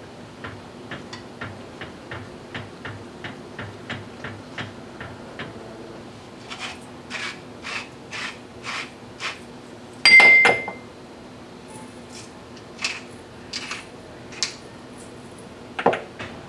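Light, regular ticks of chopsticks against a pan, about two a second, give way to a pepper grinder being twisted over the pan in gritty strokes about two a second. Just past the middle comes one loud clink with a ringing tone, then a few more grinding strokes and a low knock near the end.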